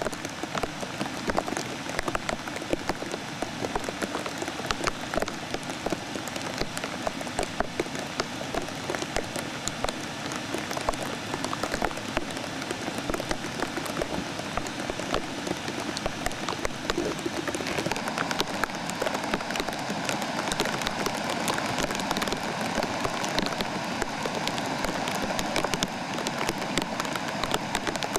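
Muddy floodwater rushing through a flooded desert wash: a steady churning, crackling water noise that grows slightly louder about two-thirds of the way through.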